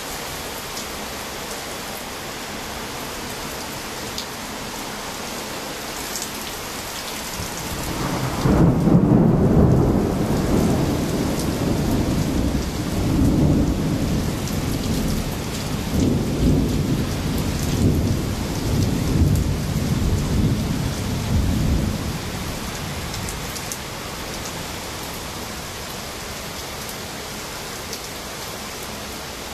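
Steady rain falling, with a long roll of thunder that builds about eight seconds in, peaks soon after, and rumbles on in several low swells for some fifteen seconds before dying away.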